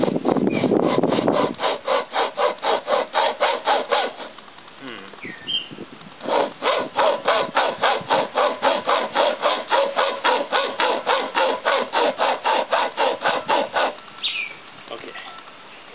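Supreme Products pocket chainsaw, a hand-pulled cutting chain drawn back and forth with cord handles, sawing through a thick wooden branch in quick rhythmic strokes, about five a second. The sawing pauses for about two seconds, then resumes and stops near the end.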